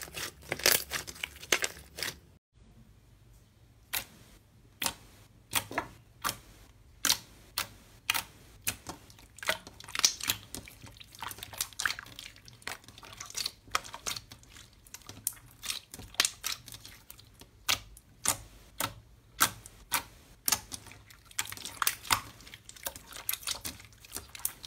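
Hands squeezing and pressing thick slime, trapped air pockets popping in sharp clicks. Dense crackling for the first two seconds, then single pops about once or twice a second.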